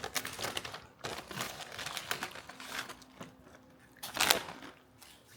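A foil potato-chip bag crinkling and crackling in the hands as it is pulled at and struggled open, with a louder crackle about four seconds in.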